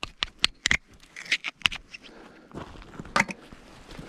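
Small metal debris being pulled off a strong fishing magnet: sharp metallic clicks and scrapes, a quick run of them in the first couple of seconds, then a louder pair of clicks near the end.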